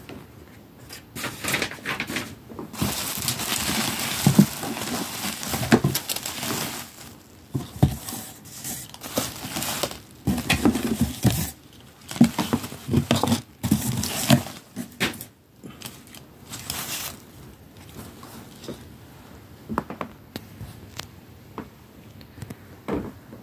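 Bubble wrap and plastic packaging crinkling and rustling in irregular bursts, with sharp clicks and crackles, as masks are lifted out of a cardboard box. It dies down after about 17 seconds to a few light taps.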